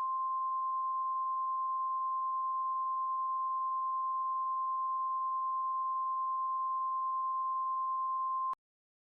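NOAA Weather Radio warning alarm tone: a single steady 1050 Hz tone held for about nine seconds, cutting off abruptly near the end. It is the alert that a warning broadcast, here a new tornado warning, is about to follow.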